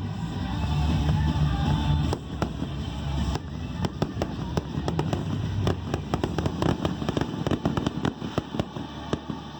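Fireworks going off in rapid succession, a dense run of sharp cracks and bangs, over music. The heavier low sound drops away about three and a half seconds in, leaving mostly the crackle of the bursts.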